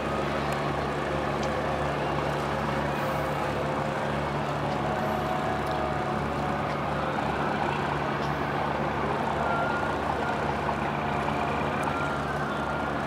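Passenger ship's engines running with a steady low hum.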